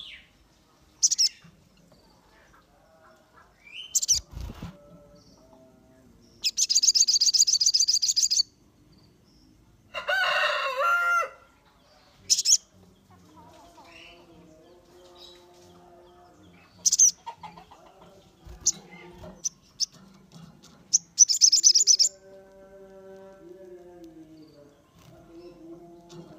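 Sogon bird calling: scattered sharp high chirps and two fast, high rattling trills, one about six seconds in and one near twenty-one seconds, with a louder, lower call about ten seconds in.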